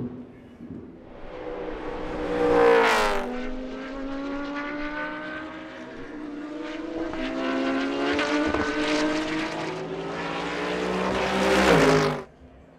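GT race cars at speed passing close by. The engine note climbs and then drops as a car goes past about three seconds in. Another car's engine note climbs steadily to a second loud pass near the end before the sound cuts off abruptly.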